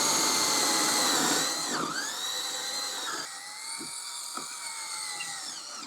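Power drill running, boring the holes for a boat's bow eye through a wooden 2x4 guide block. Its whine dips in pitch under load about two seconds in, recovers, and cuts off at the end.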